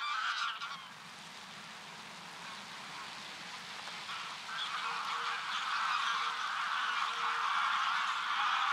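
A large flock of geese honking together as it takes off from a field. The massed calling grows louder and denser from about four seconds in.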